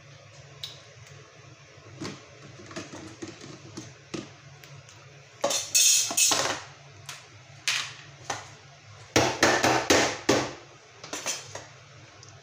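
Metal frying pan of popcorn clattering on a gas stove: a run of sharp knocks and scrapes of metal on metal, loudest in two clusters about six and ten seconds in, over a low steady hum.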